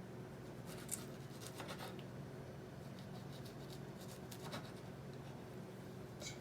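Faint, light scrapes and taps of a knife cutting strawberries on a cutting board, in a handful of short strokes, over a steady low hum.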